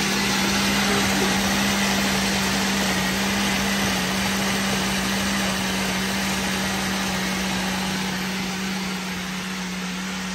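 Countertop blender running steadily, its motor humming as it purées soaked puppy kibble and water into a thin mush. The level eases slightly near the end.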